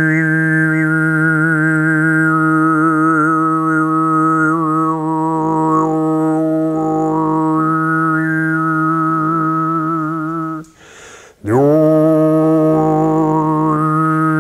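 A man's overtone (diphonic) singing: one low drone note held steadily while whistling overtones shift above it in a melody. About eleven seconds in it breaks off for a breath, then the drone comes back in with a quick upward slide to the same note.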